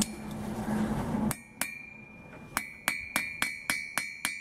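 Hammer striking a steel bar held in tongs on a blacksmith's anvil, shaping a bent letter for a branding iron: about nine blows starting just over a second in, quickening to about four a second near the end, each leaving a short metallic ring. Before the first blow there is a low steady hum that cuts off suddenly.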